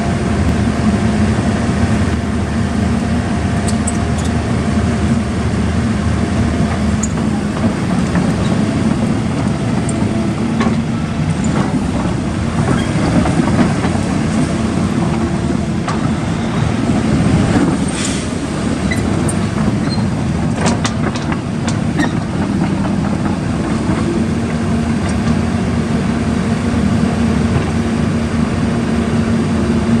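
A 2011 Caterpillar 319D L hydraulic excavator's diesel engine runs steadily while the machine swings its upper structure and moves on its tracks. Sharp clicks and squeaks come through in the middle stretch.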